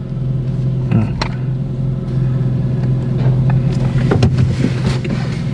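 Car-wash water spraying across a car's windshield, heard from inside the cabin over a steady low hum, with a couple of sharp knocks about a second in.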